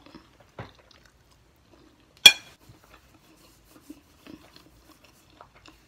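A utensil clinking sharply against a dish once, about two seconds in, with a brief ring. A fainter tap comes before it and small quiet clicks of eating follow.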